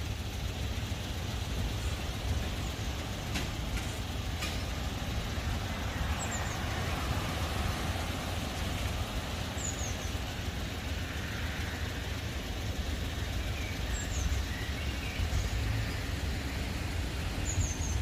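Steady low outdoor rumble with no speech, with a small bird giving a short, high, falling chirp about four times.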